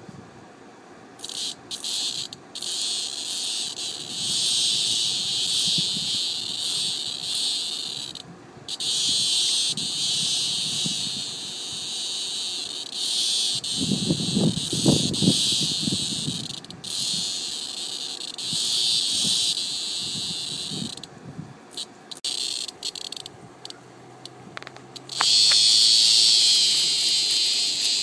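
Cicada's distress buzz, a harsh, high screaming buzz in long stretches that cut off and restart abruptly, loudest near the end. The cicada is being eaten alive by a praying mantis.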